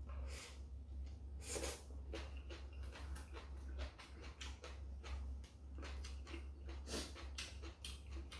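Close mouth sounds of a man chewing food: a run of short, irregular wet clicks and smacks. Near the end, chopsticks click on the dishes. A steady low hum sits underneath.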